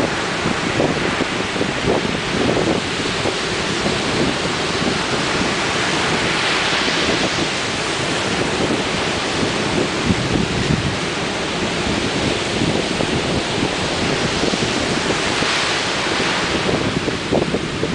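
Ocean surf: waves breaking and washing in a continuous hiss that swells up twice, with wind buffeting the microphone in a low fluttering rumble.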